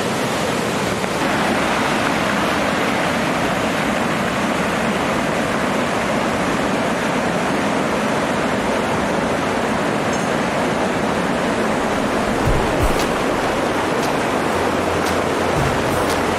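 Steady rush of falling water from a waterfall and cascades over rocks, with a few low thumps in the last few seconds.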